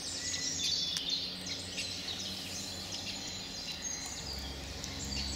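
Several wild songbirds singing and chirping, with many short high calls and quick trills. A low steady hum runs underneath and grows a little louder near the end.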